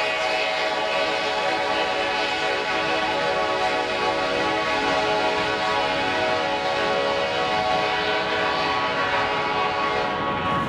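Freight train passing, with the diesel locomotives' air horn held in one long steady chord of several notes over the rumble of the rolling cars. The horn cuts off suddenly near the end.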